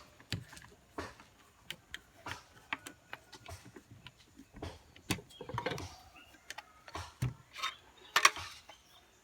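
Irregular clicks and knocks of wooden pieces and metal nuts and washers being handled and fitted together during assembly of a homemade screw clamp, with a louder knock about eight seconds in.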